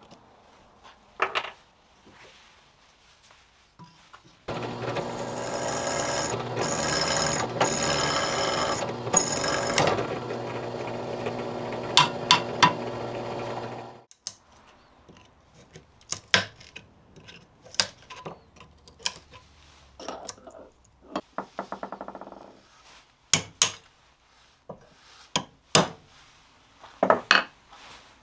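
Benchtop drill press motor running steadily for about ten seconds while drilling into the tang of an old carbon-steel meat cleaver, with a few sharp clicks near the end. After it stops, a scatter of sharp clicks and knocks of hand work on the cleaver clamped in a vice.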